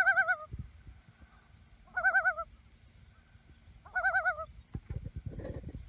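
Common loon giving its tremolo call, a quavering laugh, three times about two seconds apart.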